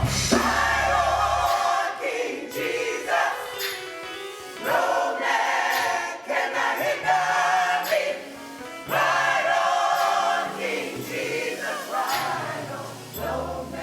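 Gospel choir singing with instrumental accompaniment, in sustained phrases a few seconds long over a bass line.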